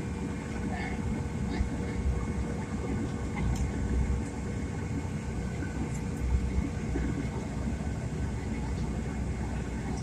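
Airliner cabin noise: a steady low rumble with a constant hum from the engines and air systems.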